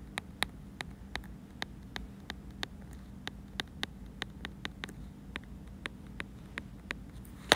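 Stylus tip tapping and clicking on an iPad's glass screen during handwriting, in short irregular ticks about three to four a second, over a faint steady hum.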